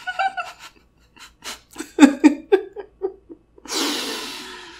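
A woman laughing, a run of short laughs that trail off, followed by a long breathy exhale that fades away.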